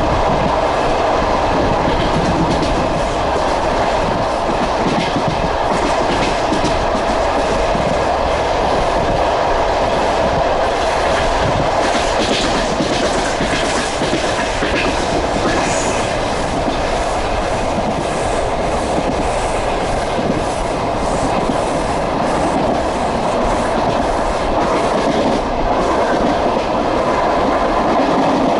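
Passenger train running at speed, heard from aboard: a steady rolling rumble of the carriage with the wheels clicking over rail joints, the clicks thickest in the middle.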